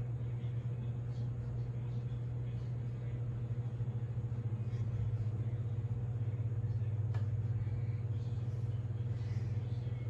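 Hunter Walden ceiling fan running on high speed, a steady low hum with a slight even pulsing.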